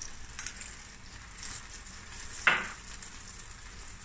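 Chicken, vegetables and noodles sizzling in a stainless steel stir-fry pan as soy-type sauce is spooned over them, a steady frying hiss. One sharp clink about two and a half seconds in.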